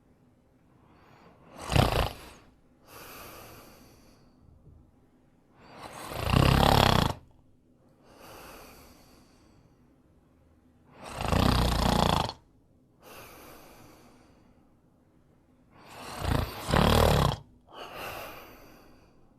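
A person snoring: four loud snores about every five seconds, each followed by a quieter breath.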